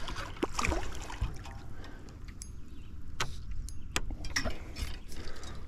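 A bass splashing at the surface as it is reeled in on a spinning rod, then swung aboard and flopping on the boat deck: a series of sharp knocks.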